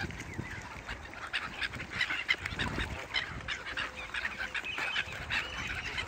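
A crowded flock of Canada geese calling: many short honks overlapping in a constant clamour, with other waterbirds calling among them.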